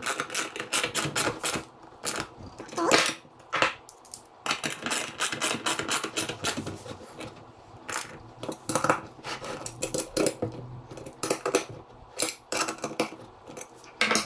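Ratchet wrench clicking in rapid bursts with short pauses, as the 13 mm nuts clamping the two halves of a Vespa split rim are tightened.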